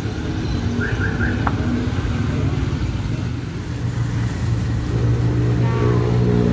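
Motor vehicle engine running close by at the roadside, a steady low hum that grows louder in the second half, with three short high chirps about a second in.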